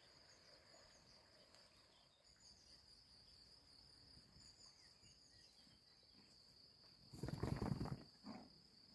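Steady high-pitched insect chirring in a grassy field, with a few faint bird chirps. About seven seconds in, a loud noisy rush close to the microphone lasts about a second, then a shorter one follows, as a horse's head and mane come up against the phone.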